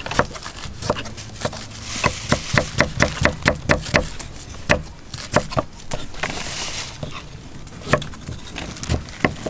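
Several kitchen knives chopping vegetables on a thick round wooden chopping block: sharp knocks of blade on wood in quick runs of about four or five a second, thinning out toward the end. A short hiss comes about six seconds in.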